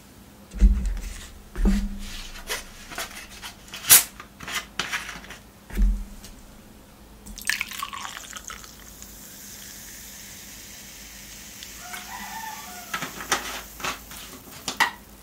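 Sprite poured from a plastic bottle into a metal tumbler: a steady fizzing hiss of the pour for several seconds, with bubbling near its end. Before it come scattered knocks and clicks of the bottle being handled, and after it a few clicks of the cap being screwed back on.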